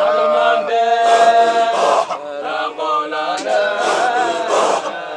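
Qadiriyya Sufi dhikr: a group of men chanting together, holding notes and shifting pitch, with breathy pulses about once a second.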